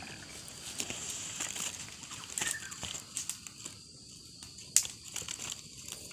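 Caught wild red-whiskered bulbuls fluttering in a woven bamboo cage, with scattered rustling and light knocks. One sharp click comes about five seconds in.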